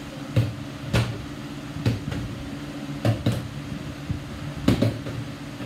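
Plastic water bottles, partly filled, flipped and landing on a ping-pong table: a series of sharp knocks, about seven, some in quick pairs, over a steady low hum.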